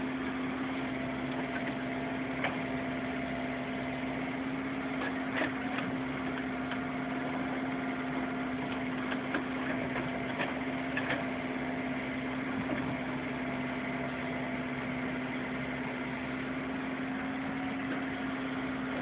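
Diesel engine running at a steady speed, with a few short sharp cracks over it.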